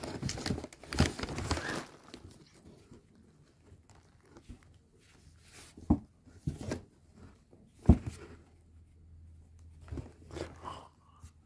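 Cardboard box rustling and scraping as a cat inside scuffles with a hand, dense for the first two seconds, then a few sharp knocks against the cardboard, the loudest about eight seconds in.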